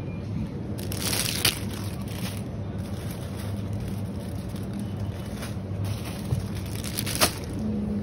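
Shopping cart rolling along a supermarket floor, its plastic basket rattling, over a steady low hum. Two sharp clicks, about one and a half seconds in and near the end.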